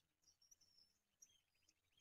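Very faint, short, high bird chirps and tweets, with a fast ticking trill starting about halfway through.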